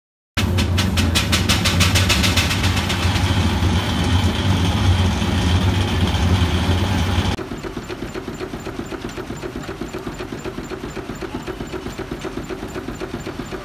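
1924 Frick steam engine running, its exhaust chuffing in a steady rhythm with hiss. The sound starts loud, then drops abruptly to a quieter, even beat of about five chuffs a second about seven seconds in.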